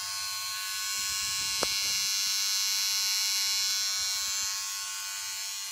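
Philips QT3310/15 cordless beard trimmer running: a steady, high-pitched electric buzz from its motor and blades.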